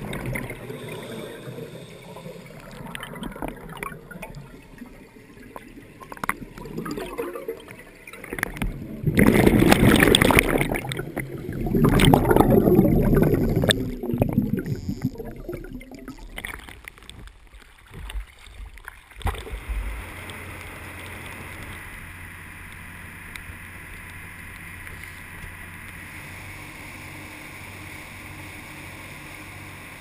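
Underwater scuba breathing, with two long loud rushes of exhaled regulator bubbles past the camera about nine and twelve seconds in. Then, from about twenty seconds in, a steady rush of water and wind with a low engine hum from a boat under way.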